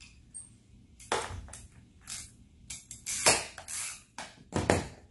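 Roof-rack hardware being handled and fitted: a string of sharp clacks, knocks and short scrapes, about eight in all, the loudest a little past the middle.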